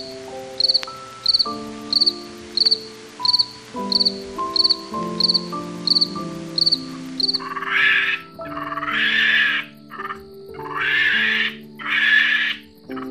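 A cricket chirping in an even rhythm, about three chirps every two seconds, over soft background music. After about seven and a half seconds the chirping stops and four loud hoarse noisy sounds follow, each about a second long.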